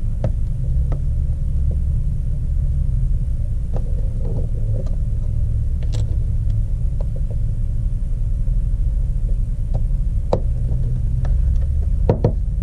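Steady low rumble under scattered light clicks and ticks as a plastic pry tool works around the LG G5's snap-in housing clips, with a couple of sharper clicks near the end.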